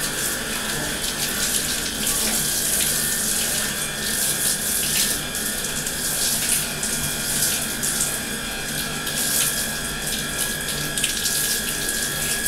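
Water from a handheld shower head running steadily over long hair and into a bathtub as the hair is rinsed.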